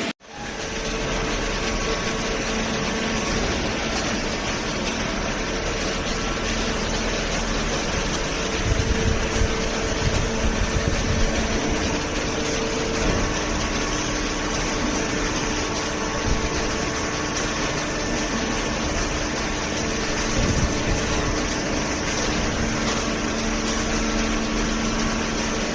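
Hydraulic baler running: a steady mechanical hum and hiss from its motor and pump, with some low knocks about eight to thirteen seconds in.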